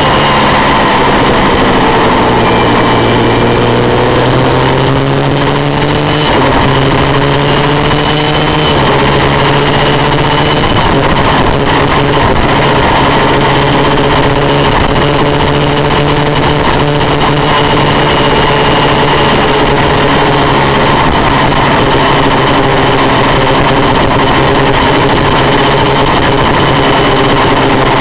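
Honda VFR400's V4 engine running hard, recorded onboard, over steady wind rush. Its pitch sinks and climbs, with a few sudden jumps in the first ten seconds as gears are changed.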